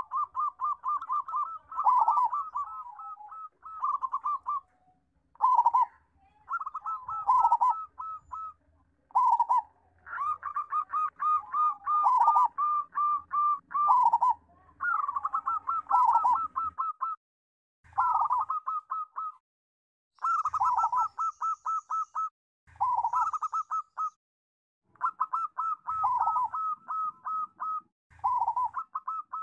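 Zebra dove (perkutut) cooing in rapid staccato phrases, each a quick run of notes, repeated over and over with short pauses between: the bird in full, strong song.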